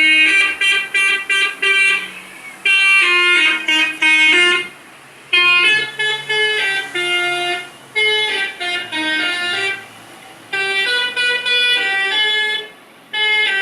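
Indonesian "telolet" bus horn, a multi-tone musical air horn, playing loud melodic tunes in about six phrases of a couple of seconds each with short pauses between, the notes stepping up and down.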